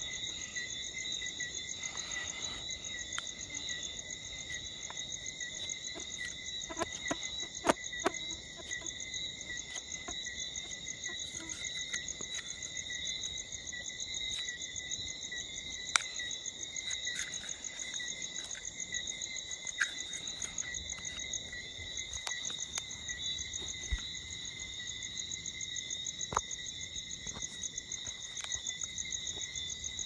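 Steady night chorus of calling frogs or insects: a continuous high, fast-pulsing trill with overtones, with a few sharp clicks scattered through it.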